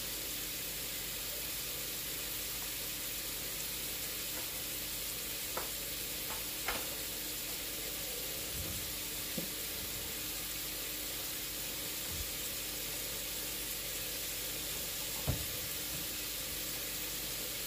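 Ground beef sizzling steadily as it cooks, with a few scattered sharp clicks, the loudest about fifteen seconds in.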